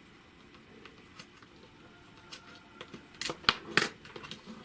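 Handling noise: a quick run of sharp clicks and taps from small hard objects about three seconds in, the two loudest close together.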